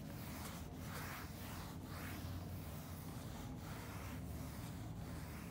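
Whiteboard eraser rubbing across a dry-erase board in repeated wiping strokes, a soft swish about once a second.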